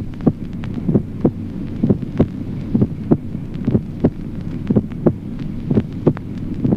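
Human heart sounds: a regular lub-dub at about 65 beats a minute, about seven beats in all. The first heart sound is split, just perceptibly, into two separate components, while the second sound is single.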